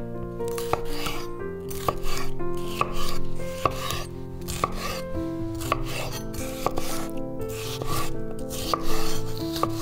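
A knife chopping food on a cutting board in irregular strokes, roughly one a second. Background music with a melody plays throughout.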